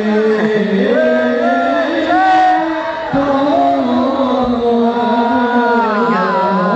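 Islamic devotional chant (sholawat) sung in long, wavering, melismatic held notes over a steady low tone.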